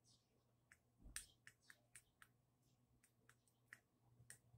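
Near silence: room tone with a faint steady low hum and scattered faint clicks, about a dozen, the most distinct about a second in.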